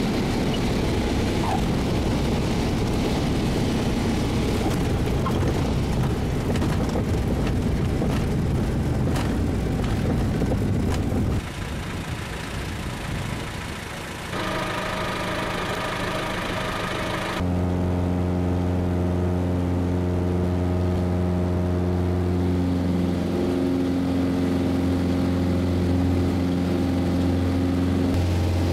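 Mooney M20J's four-cylinder piston engine and propeller running steadily, heard from the cabin. The drone shifts abruptly twice, dipping quieter about 11 seconds in, and from about 17 seconds on it settles into a steadier, even-pitched hum.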